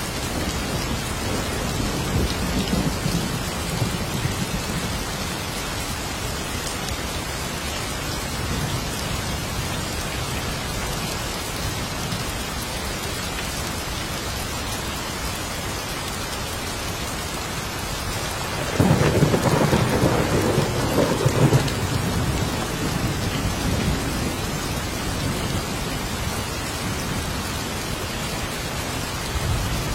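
Steady heavy rain hissing, with low rolling thunder early on and a sudden louder thunderclap about two-thirds of the way through that rumbles for a few seconds.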